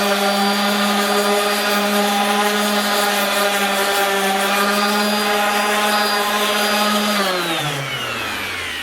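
Electric sander running steadily on juniper wood, then switched off about seven seconds in, its pitch falling as it spins down.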